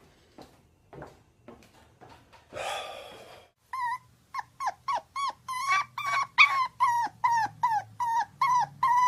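A dog whimpering in a rapid, even string of short high-pitched whines, about three a second, starting about four seconds in. It is preceded by soft snuffling clicks and a breathy snort.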